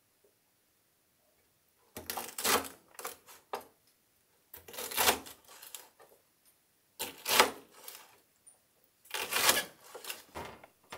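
Kitchen knife chopping fuki (butterbur) stalks on a wooden cutting board: runs of quick knife strikes, four runs with short pauses between, starting about two seconds in.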